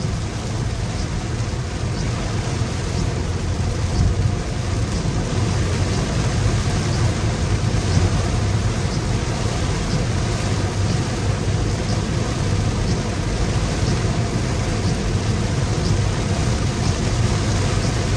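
Heavy downpour of rain beating on a car, heard from inside the moving car over steady road and engine rumble.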